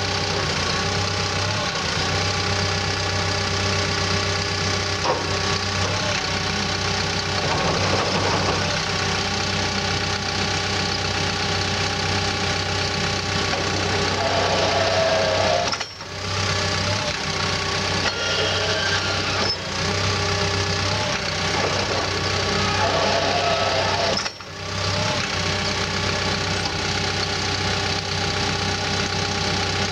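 Caterpillar D5K2 bulldozer's four-cylinder diesel engine running steadily. The sound briefly cuts out twice, about halfway through and again about three quarters of the way through.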